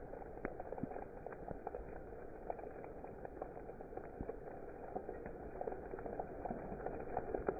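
Steady rain: a continuous wash of falling water with many irregular taps of single drops striking a surface.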